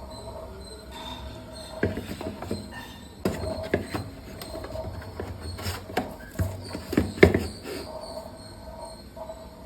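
Irregular clicks, taps and knocks of kitchen items being handled and set down, over soft background music with a steady held tone.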